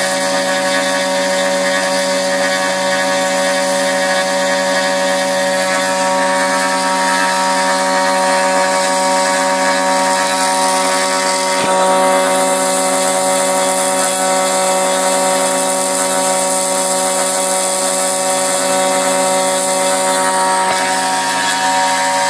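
Homemade high-frequency spindle on a Stepcraft CNC router cutting 7075 aluminium plate with a small end mill: a steady whine of several tones over the hiss of the cut. From about halfway through the cutting hiss turns brighter, easing again shortly before the end.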